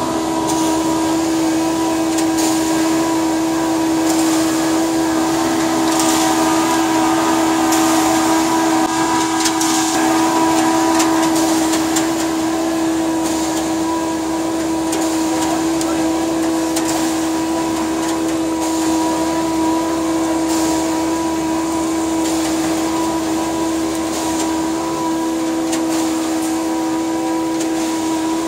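Heavy machinery running steadily at a concrete pour, as a concrete agitator truck discharges through its chute into a concrete pump's hopper. It makes a constant drone with a strong held tone, under a hiss that fits the water hose spraying the chute.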